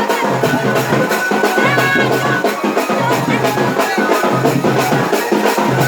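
Dance music with a fast, steady drum beat over a sustained low drone, with a melody line coming in and out.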